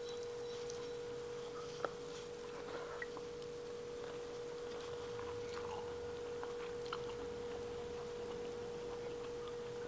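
Quiet eating by hand: fingers working rice and fish on a plate and chewing, with a few faint clicks, over a steady humming tone.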